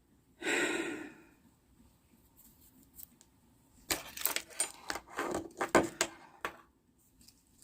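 Car keys and a key fob being handled: a brief rustle, then a run of small metallic jingles and clicks in the second half.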